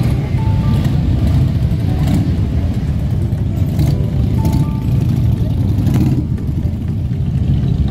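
Music with a short melodic phrase that repeats, over a heavy, steady low rumble.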